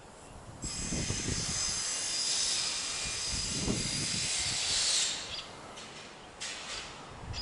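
A steady high-pitched hiss that starts abruptly about a second in and fades out about five seconds in, returning briefly near the end, over intermittent low rumble.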